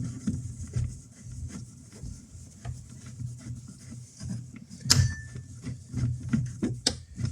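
Light clicks and knocks of plastic parts being handled and fitted together while a boat switch panel is assembled into its box, with a sharper click about five seconds in and another near the end. A low steady hum runs underneath.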